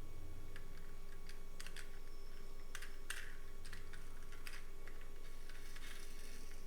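Light, irregular clicks and taps of small die-cast toy cars being handled, over a faint steady hum.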